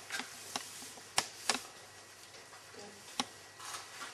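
Handling noise: a few separate sharp clicks over faint rustling, from clothing being adjusted close to the microphone.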